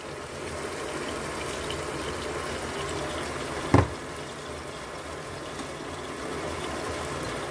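Minced meat and onions frying in a pan with a steady sizzling hiss, and one sharp knock about halfway through.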